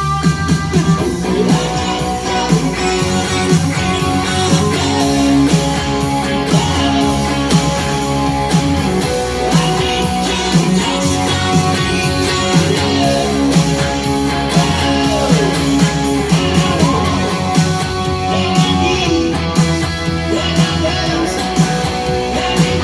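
Electric guitar being played, a Frankenstrat-style striped guitar with a single bridge humbucker, running through a continuous rock part of picked notes and chords with many sharp attacks.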